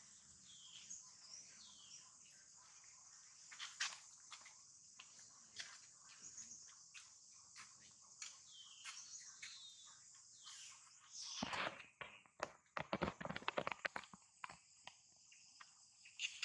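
Steady high-pitched insect drone, with scattered short chirps. About eleven seconds in comes a quick run of sharp clicks and rustles.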